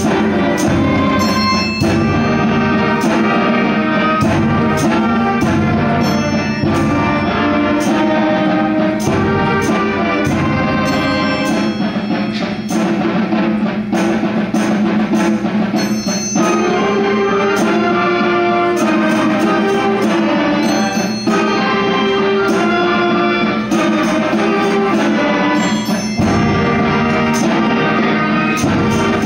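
School concert band playing a piece, with drum and percussion strokes in a steady rhythm under the sustained notes.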